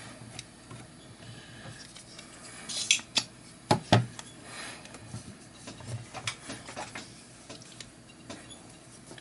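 Spring-loaded desoldering pump (solder sucker) fired against a circuit board: a sharp snap about three seconds in, followed closely by a few louder clicks and knocks as the pump is handled. Lighter clicks and handling noise follow.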